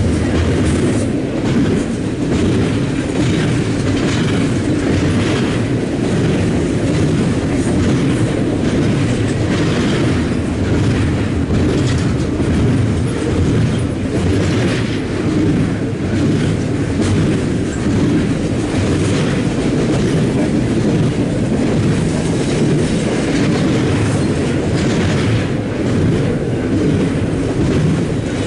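BNSF double-stack intermodal train's container-laden well cars rolling past, a steady loud rumble with repeated clacks of wheels over rail joints.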